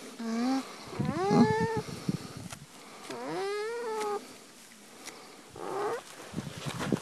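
Alpaca humming: about four rising, questioning hums, a short one at the start, two longer ones in the middle and a short one near the end.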